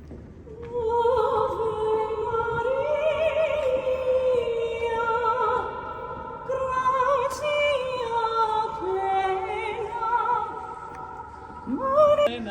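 Operatic singing with long held notes and vibrato, beginning about a second in, with several voices or parts sounding together.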